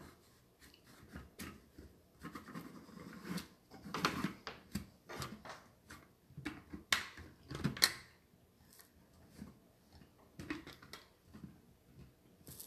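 Plastic lid and motor unit of an electric ice cream maker being fitted and turned onto its freezer bowl: scattered clicks, knocks and scrapes of hard plastic on plastic, with a couple of sharper knocks past the middle.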